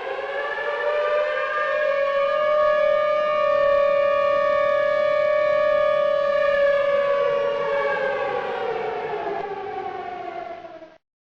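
Outdoor tornado warning siren finishing its wind-up, then holding a steady high tone. After about seven seconds it winds down, falling in pitch, and cuts off abruptly near the end.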